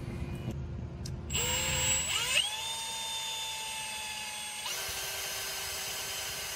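Power drill spinning up about a second in with a rising whine, then running steadily as its bit bores into a broken-off bolt in a flathead engine's cylinder head; the tone shifts and turns rougher about halfway through.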